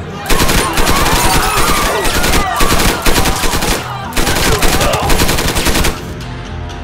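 Automatic gunfire from machine pistols, fired in three long rapid bursts over about six seconds, with voices crying out among the shots.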